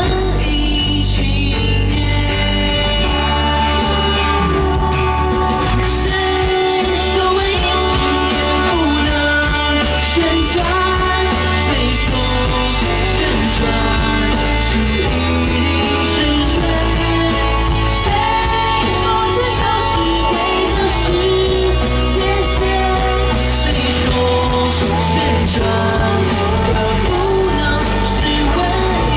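A woman singing a pop-rock song into a handheld microphone, backed by a live band with bass, guitar and drums, loud through a concert sound system.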